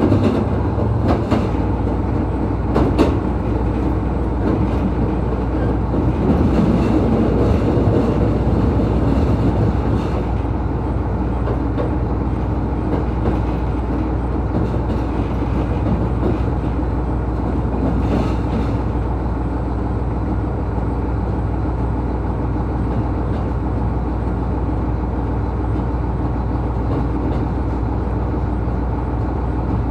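Diesel engine of an ET122 railcar running with a steady low drone, with a few knocks in the first few seconds.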